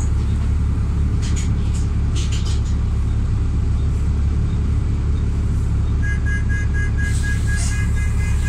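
Double-decker bus's diesel engine idling while stopped, a steady low rumble heard from inside the bus, with a few light rattles. About six seconds in, a rapid electronic beeping starts and keeps going.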